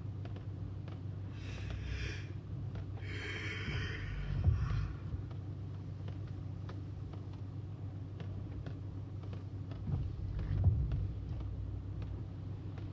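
Car interior on a rainy drive: steady low rumble of the road and engine, with scattered small taps of raindrops. Two short swells of hiss come about two and four seconds in, and a couple of low thumps around five and eleven seconds in.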